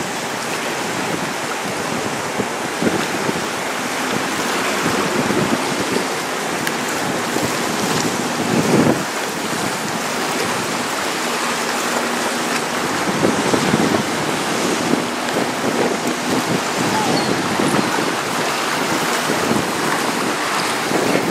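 Wind buffeting the microphone over choppy water sloshing and lapping, a steady rushing noise. A faint low engine hum comes in around the middle.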